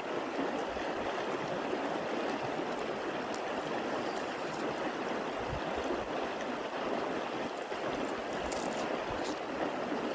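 Shallow river rushing steadily over stones, with a few faint crisp clicks of a knife peeling an onion.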